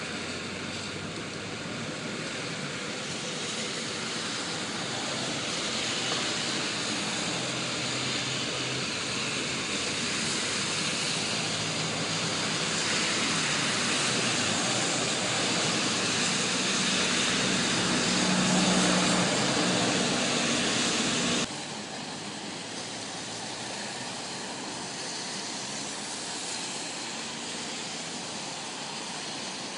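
Steady rushing noise of rain and traffic on wet streets, slowly building to a passing engine, then cutting off abruptly to a quieter hiss about two-thirds of the way through.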